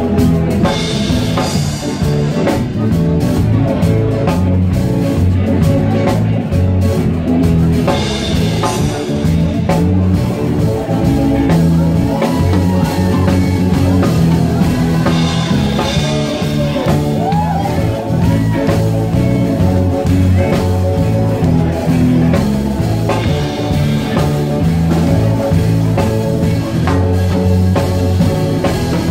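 Live band playing: electric bass guitar, drum kit and keyboards, with the bass line loudest.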